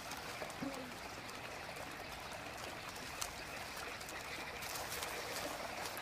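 Shallow stream trickling steadily.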